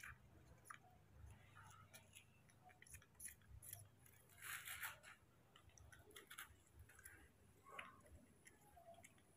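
Near silence with faint scattered small clicks and wet mouth sounds of orange segments being eaten, and a brief soft rustle about halfway through.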